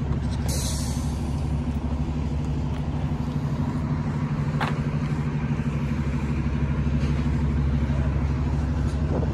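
A motor vehicle's engine running steadily close by, with a brief hiss about half a second in.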